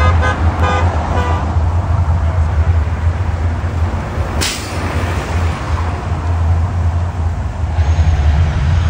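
Deep steady rumble of the Mirage volcano show mixed with Strip traffic; a horn toots a few times near the start, and a short sharp hiss cuts in about halfway as a bus passes close by. A rush of noise rises near the end as the volcano's fire shoots up.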